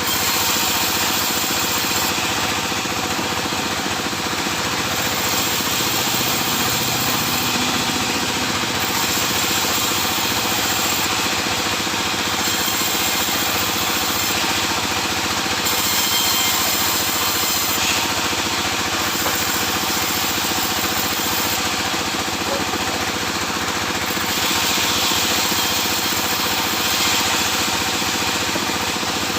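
Sawmill saw and its drive running steadily while sawing sengon laut logs, a continuous machine drone with a hiss that swells and fades every few seconds.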